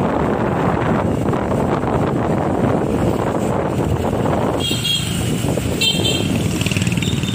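Wind rushing over the microphone on a moving motorbike, easing a little about two-thirds of the way in. Then a motorbike horn gives two short beeps, about a second apart.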